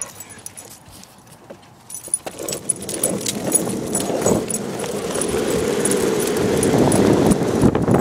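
Longboard wheels rolling on asphalt as a boxer pulls the board along, the rolling noise growing louder from about two seconds in as it picks up speed. The dog's collar tags and leash clip jingle over it.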